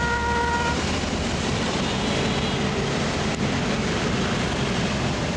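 Steady road noise from a moving vehicle on a wet road, with engine rumble and tyre hiss. A short horn honk sounds at the very start.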